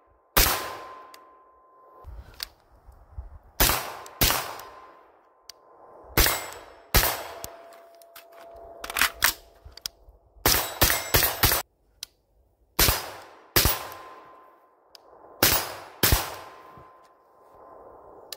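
Suppressed AR-15 carbine fitted with a YHM Turbo K suppressor, fired about fifteen times: single shots about a second apart and quick strings of three or four, each shot with a short echo.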